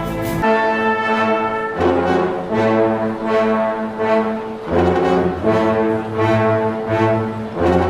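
Orchestral music led by brass, with horn-like chords sounding over a regular pulsing bass beat.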